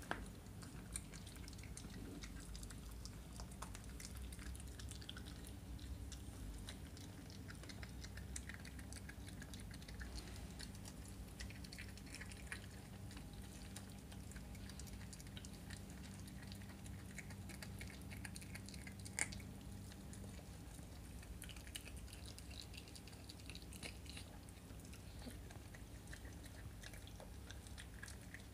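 Miniature schnauzer puppy gnawing and chewing a raw chicken drumstick, faint small crunches and clicks scattered irregularly throughout, over a low steady hum.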